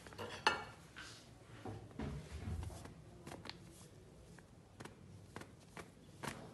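Faint, scattered clicks and light knocks of a spoon against kitchen containers while a spoonful of cornstarch is scooped and added.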